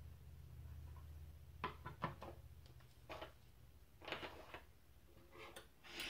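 Light knocks and clicks of a plastic precision-screwdriver case being set down and small metal tools picked up from a wooden desk, a handful of scattered taps, with a low hum that fades out about halfway through.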